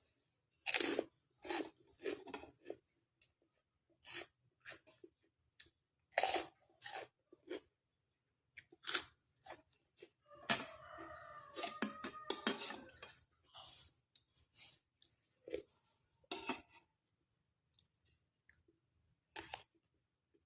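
Close-up chewing and crunching of food while eating a bowl of bakso, in separate short bursts with pauses between them. About halfway through there is a longer run of busier mouth noises lasting two or three seconds.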